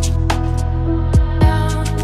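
Background music: a steady electronic track with sustained tones, deep kick-drum hits that drop in pitch, and short high taps.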